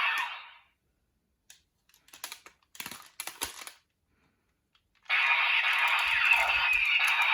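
Light clicks and taps of folded paper pieces being handled and fitted together, in scattered bursts. About five seconds in, a loud continuous electronic sound starts suddenly and carries on.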